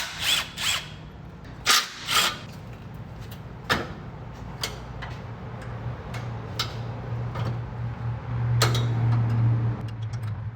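Metal tools clicking and knocking against the truck's brake valve fittings and bracket as the load sensing proportioning valve is taken off, a few sharp knocks at a time. A low steady hum rises underneath and is loudest near the end.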